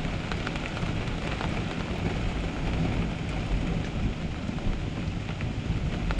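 Storm wind gusting with rain: a steady, fluctuating low rumble of wind with scattered raindrop taps through it.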